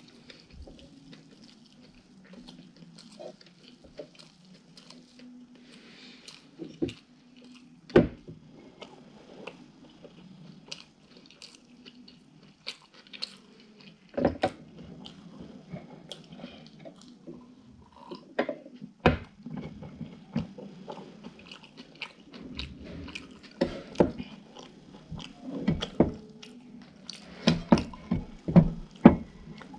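Close-miked chewing of soft pancake with pepper salad: wet mouth sounds and many short, sharp clicks, coming thicker near the end.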